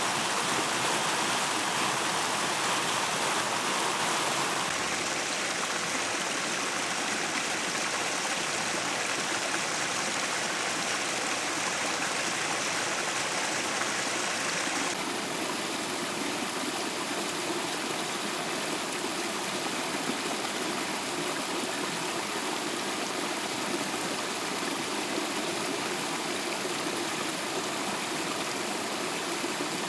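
Steady rush of a mountain stream or waterfall cascading over rock. Its tone shifts abruptly twice, about five and fifteen seconds in.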